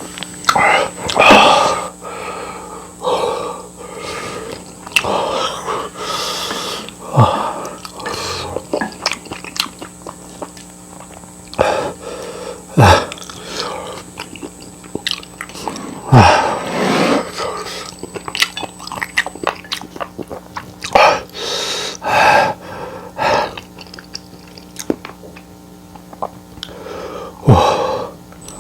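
A person eating close to the microphone: chewing and biting in irregular short bursts every second or two.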